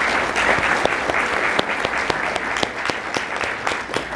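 Audience applauding, the clapping dense and even and starting to thin out near the end.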